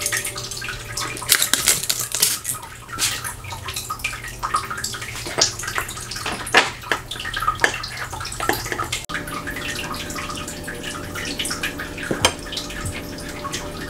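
Chopsticks and utensils clicking against a glass kimchi jar and a ceramic plate while food is served, over a steady hiss.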